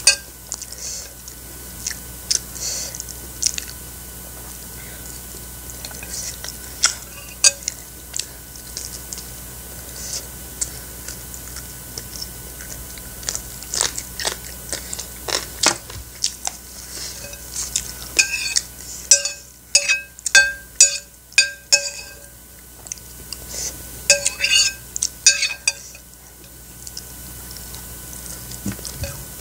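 Close-up eating sounds: chewing and lip smacking on chicken, with a metal spoon clinking and scraping on a ceramic plate. In the second half comes a run of quick ringing clinks, several strokes about a third of a second apart.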